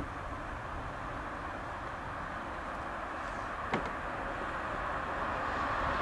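Twin rear-mounted jet engines of a business jet running on the runway: a steady rushing jet noise over a low rumble, slowly growing louder.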